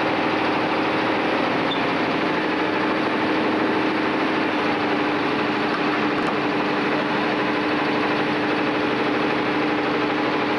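Diesel super stock pulling tractor's engine idling steadily at the starting line, with a steady tone held over the engine noise.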